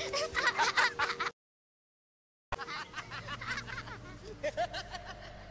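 Children giggling and squealing in play, which cuts off abruptly about a second in; after a second of silence, fainter children's laughter and voices return.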